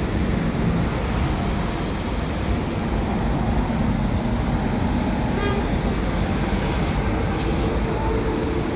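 Road traffic on a city street: steady noise of cars and a bus driving past close by, with a brief beep about five seconds in.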